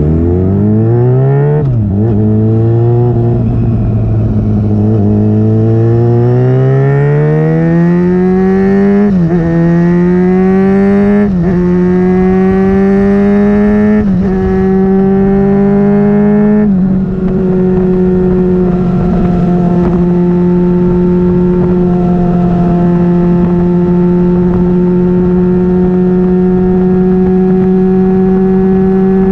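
Yamaha FZ6's inline-four engine through a loud Dominator aftermarket exhaust, accelerating hard. The pitch climbs and drops at about five upshifts, then holds steady at a cruise from about 17 seconds in.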